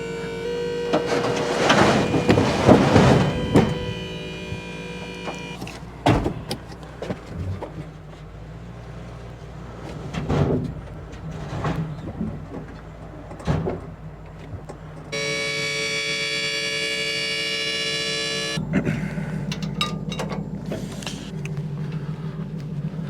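Ford F250's 5.4-litre Triton V8 running steadily after a cold start, with several sharp knocks and clunks over it. A held tone with several pitches sounds for about three seconds past the middle, and the engine's hum comes up stronger near the end.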